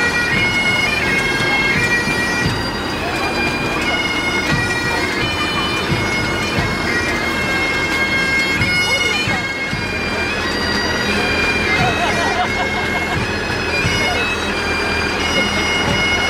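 Pipe band bagpipes playing a tune, the melody stepping from note to note over their steady drones.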